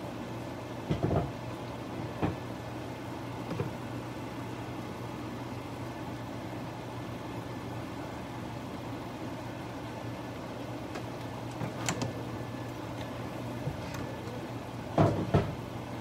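Steady low kitchen hum while a pot of beef gyudon sits simmering, broken by a few soft knocks and clinks. The loudest is a pair of thumps near the end.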